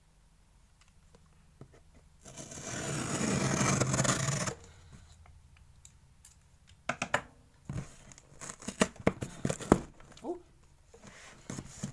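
A cardboard shipping box being opened: a tearing sound lasting about two seconds, then scattered rustling and sharp clicks as the cardboard and packing are handled.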